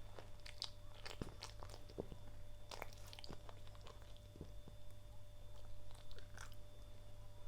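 A French bulldog's mouth making soft, irregular clicks and smacks, a few scattered through each second, close to the microphone.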